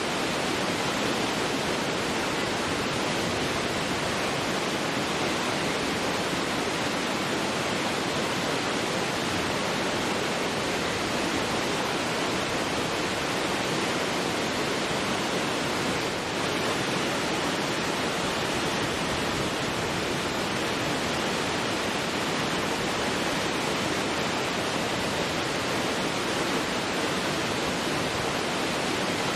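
Large waterfall in full flow: a dense, steady rush of falling water.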